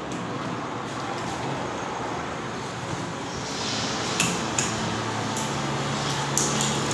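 Plastic housing of a round LED surface ceiling light rubbing against its mounting base as it is twisted into place. In the second half there is a rising scrape and a few sharp plastic clicks.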